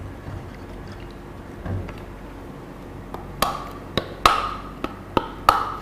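Knife blade hacking into a hand-held piece of coconut to split it, about six sharp knocks in the second half, several with a short ring.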